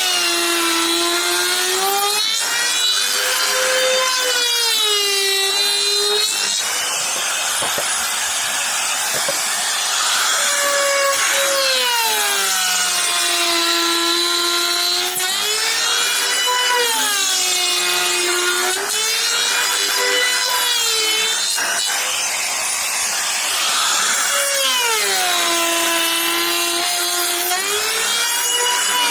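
Electric power tool cutting wood, its motor pitch repeatedly dropping as it bites into the wood and rising again as it frees, every few seconds, over the hiss of the cut.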